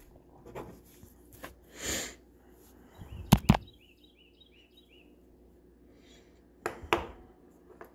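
Two quick pairs of sharp clicks, a little over three seconds apart, are the loudest sounds. Between them a bird faintly chirps a rapid run of about six short falling notes.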